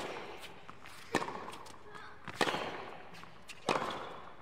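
Tennis rackets striking the ball in a baseline rally: three sharp hits about a second and a quarter apart as the players trade groundstrokes.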